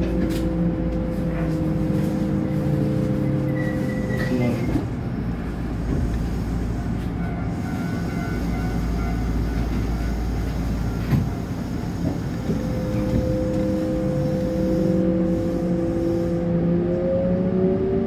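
Electric train's traction motor whine sliding slightly down and dropping away about four seconds in, leaving the rumble of wheels on rail. From about two-thirds through, the whine returns and rises steadily in pitch as the train picks up speed.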